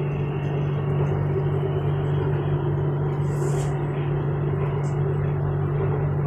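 Siemens Modular Metro electric train running, heard from inside the passenger car: a steady drone with a constant low hum, and a short hiss about three and a half seconds in.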